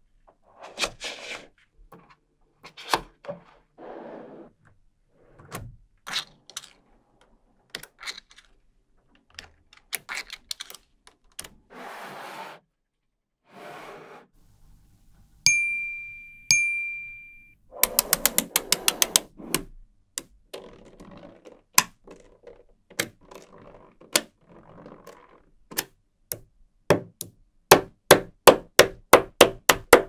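Small magnetic balls clicking and snapping together as strips and blocks are pressed into place, with short sliding and scraping sounds between the clicks. About halfway through, a clear bell-like ding rings twice, and over the last few seconds the clicks come in a quick, even run.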